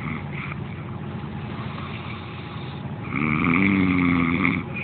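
Boat engine running steadily. Near the end a louder pitched drone rises briefly, holds for about a second and a half, then stops.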